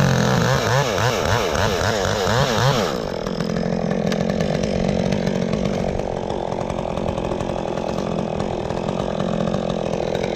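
Chainsaw engine running, its pitch wavering quickly up and down for about the first three seconds, then holding steady.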